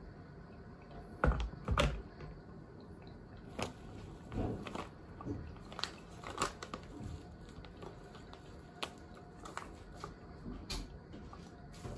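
Gooseneck electric kettle set down on its base with two knocks about a second in, followed by scattered light knocks and clicks of things being handled. Near the end comes the crinkle of a foil coffee bag.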